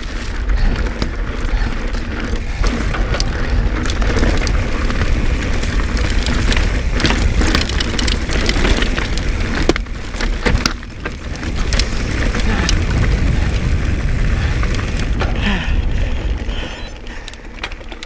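Pivot Switchblade mountain bike ridden fast over a rocky trail: tyres crunch over loose stone, and there are many small knocks and rattles from the bike on the bumps. Wind rumbles steadily on the microphone.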